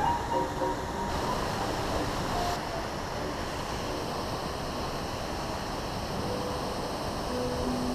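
Steady rush of a mountain stream, with water pouring over a concrete weir into the pool. Faint guitar music fades out at the start and comes back in near the end.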